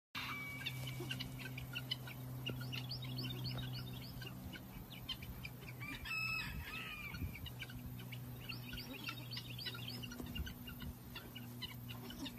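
Birds chirping in quick, repeated short notes over a steady low hum, with one short, louder call about six seconds in.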